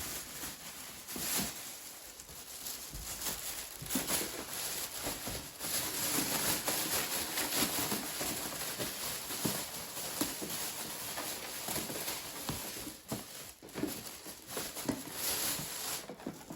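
Rustling and crinkling of packaging and small handling clicks as items are moved around and taken out of a bag.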